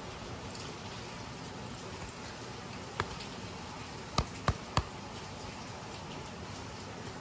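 Hands handling stiff raw denim jeans and their leather back patch: a steady rustling hiss, with one sharp click about three seconds in and three quick clicks just past four seconds.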